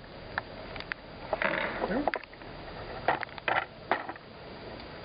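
Scattered sharp clicks and light knocks at an irregular pace, with a brief muffled sound like a voice about a second and a half in.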